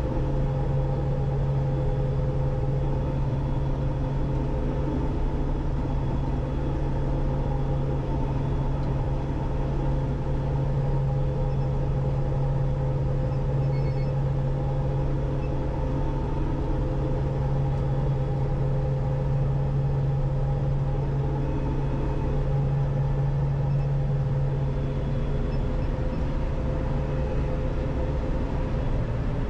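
Combine harvester running steadily while harvesting barley at slow speed: a continuous engine and threshing drone with a deep hum. The hum drops away a few seconds before the end.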